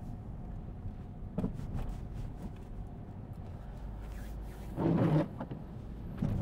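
Car engine and road noise heard from inside the cabin while driving straight on, a steady low rumble. A brief louder sound comes about five seconds in.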